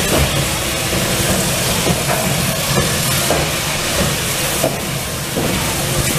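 Steam locomotive hissing steam steadily while it stands on a turning turntable, over a low steady hum.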